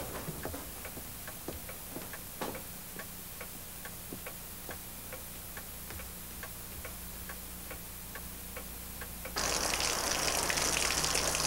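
Clock ticking steadily, about three ticks a second, in a quiet room. About nine seconds in it cuts off abruptly and a louder, steady hiss takes over.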